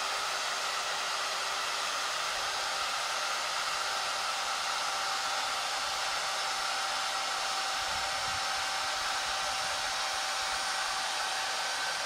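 Heavy electric drill-type drive motor running steadily under load as it screws a 1 m steel ground screw pile down into the soil, a continuous whirring whine. Its tone shifts slightly about four to five seconds in as the pile goes deeper.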